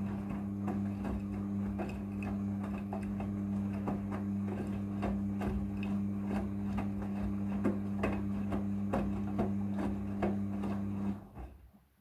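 Midea front-loading washing machine turning its drum with a blanket inside: a steady motor hum with irregular clicks and knocks. The sound dies away about eleven seconds in as the drum comes to a stop.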